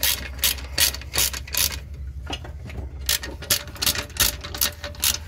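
Hand socket ratchet clicking stroke after stroke as it undoes the nuts on a car's exhaust flange, about two or three clicks a second. The clicks come in two runs with a short pause about two seconds in.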